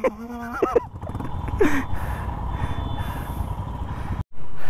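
Motorcycle engines idling, a low uneven rumble, with a brief break near the end.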